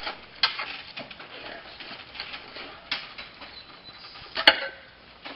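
Scraping and clattering with three sharp knocks, about a second in, near the middle and near the end; the last knock is the loudest.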